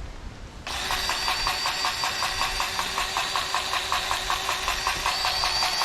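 Cordless battery-powered grease gun running, its motor and pump starting suddenly and then pulsing rapidly with a high whine as it pumps grease into an excavator pin fitting.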